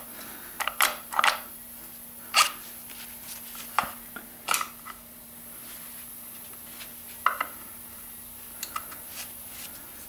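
Scattered metallic clinks and taps of a hand tool prying and knocking at the front of a stripped BMW N54 engine, about nine short knocks spread unevenly, under a faint steady hum.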